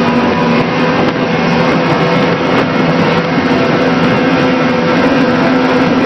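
Fountain 38 powerboat's engines running steadily at speed on a propeller test run with smaller props, mixed with wind and water noise.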